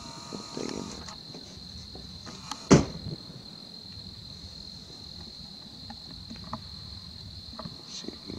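Crickets trilling steadily in the night air, a continuous high-pitched chirring. A single sharp knock, likely handling of the camera or tripod, cuts in just under three seconds in, with a few faint clicks later.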